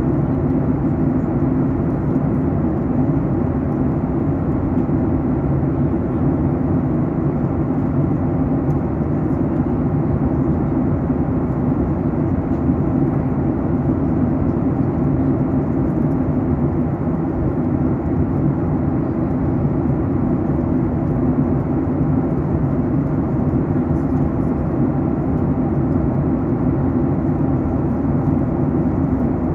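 Steady cabin noise inside a Boeing 737 MAX 8 airliner during descent: an even rush of airflow with a low hum from its CFM LEAP-1B turbofan engines, unchanging throughout.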